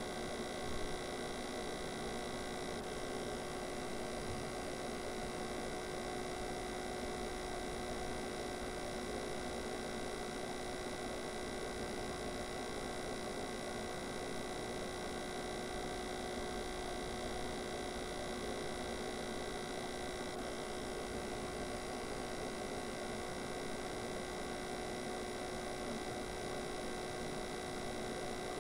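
A steady hum made of several held tones, unchanging in pitch and level, with a small bump about a second in.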